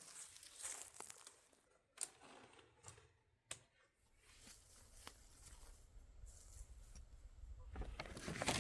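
Faint rustling of tent nylon being handled, with a few single sharp clicks about two, three and a half, and five seconds in; the rustling grows louder near the end.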